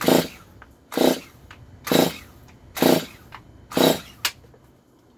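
Stihl chainsaw, which the owner believes is an MS 250, being pull-started: five quick yanks of the recoil starter rope, about one a second, each a short whirring rasp as the engine turns over without catching. It does not fire, and the owner suspects the ignition coil.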